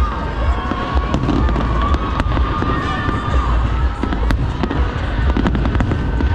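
A fireworks display going off: a dense run of bangs and crackles over a continuous deep rumble.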